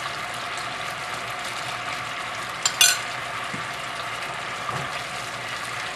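Brown sauce bubbling and sizzling at a boil in a frying pan while a wooden spoon stirs it, as more cornstarch slurry goes in to thicken it. The hiss is steady, with one short, sharp clack a little before halfway.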